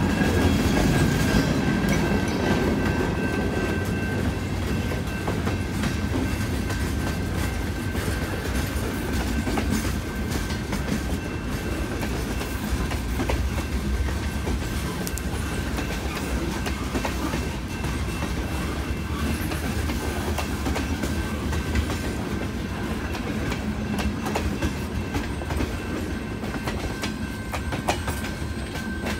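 Freight train of empty centre-beam flatcars and gondolas rolling past, with a steady low rumble and the wheels clacking over the rail joints. A steady high-pitched tone sounds over it throughout.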